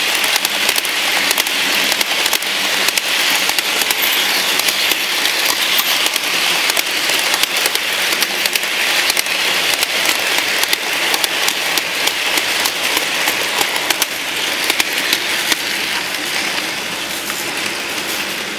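HO-scale model freight train rolling past on the track: a steady hiss of wheels on rail with dense, rapid crackling clicks, easing slightly near the end.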